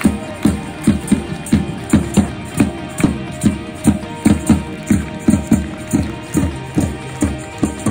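Music with a steady beat of low drum hits, about two to three a second, under held pitched notes.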